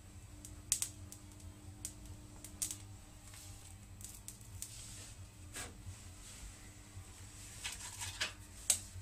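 Scattered sharp clicks and crackles, unevenly spaced, over a faint steady hum, from test probes passing current through a pencil's glowing graphite core and then being lifted away.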